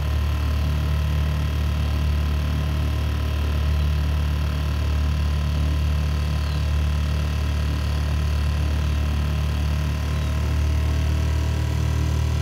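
Dinghy's outboard motor running steadily under way, a low, even drone that holds without change.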